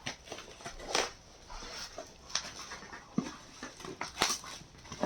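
Scattered sharp clicks and rustling from a parcel being handled and opened, with a few short whining sounds in between.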